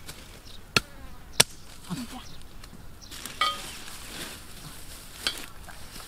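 Insects buzzing over a steady outdoor hiss, broken by sharp clicks: two close together about a second in and another near the end.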